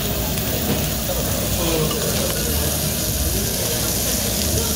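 Pork belly sizzling on a tabletop grill: a steady hissing din, with indistinct voices behind it.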